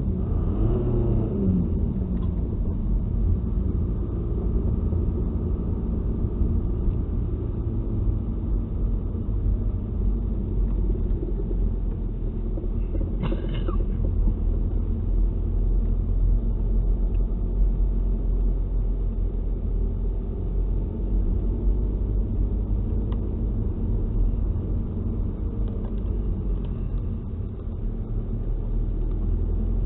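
Volkswagen Passat diesel heard from inside the cabin while driving: a steady low engine and road rumble, the engine note shifting with the throttle. A brief high squeak sounds about halfway through.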